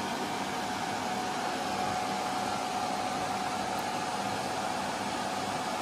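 Steady rush of cooling fans from a running RF power amplifier and its test equipment, with a faint steady tone above the fan noise.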